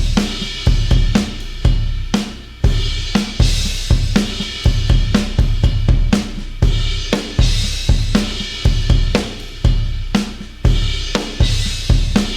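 Sampled acoustic rock drum kit from EZdrummer 3's Classic Rock EZX playing a steady groove. The kick, snare, hi-hat and cymbals are struck in an even repeating beat.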